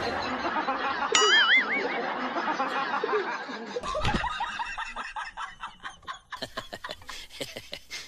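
Laughter in quick rhythmic bursts. A short wavering, warbling tone sounds about a second in.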